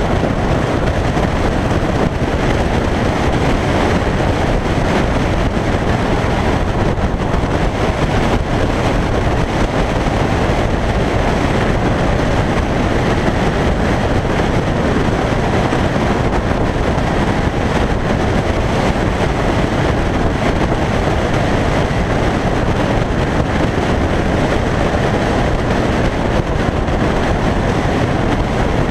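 Onboard sound of a 2001 Yamaha YZF-R1's inline-four riding at a steady cruise: a steady rush of wind and road noise with the engine running beneath, with no shifts or revs.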